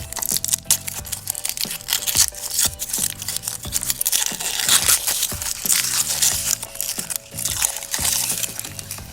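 Crinkling, crackling and tearing of packaging as a chocolate surprise egg's box and wrapper are opened by hand, over background music with a steady beat.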